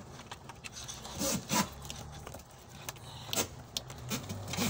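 Rubbing, scraping and scattered small clicks of a wire being pushed in behind a car's dashboard, among the wiring harness and plastic trim.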